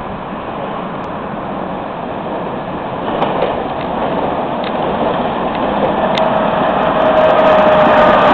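Tatra-ČKD KT8D5 articulated tram approaching and passing close by: the rumble of its wheels on the rails grows steadily louder, with a few sharp clicks. From about six seconds in a whine rises out of the rumble and falls slightly in pitch as the tram goes by.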